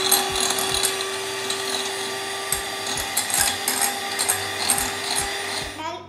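Electric hand mixer running at a steady speed, its beaters whisking beaten eggs in a glass bowl, with a constant motor hum and light ticking. It switches off just before the end.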